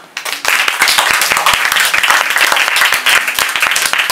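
Audience applauding: many hands clapping together, starting about half a second in and going on steadily.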